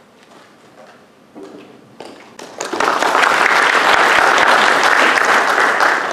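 Audience applauding, starting about two and a half seconds in, quickly building up and holding steady, then beginning to die away near the end.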